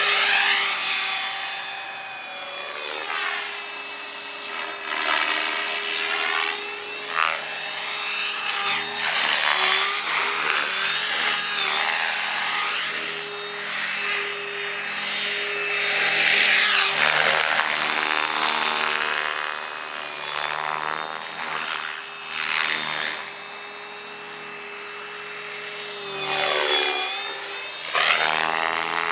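Electric RC helicopter (a stretched Protos, Scorpion motor) in flight: a steady motor and gear whine with main-rotor blade noise. Its pitch and loudness rise and fall repeatedly in sweeping glides, loudest about a third and halfway through.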